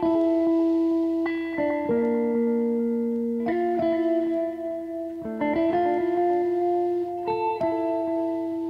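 Slow, relaxing background music on plucked guitar: single notes and chords that ring on, a new one sounding every second or so.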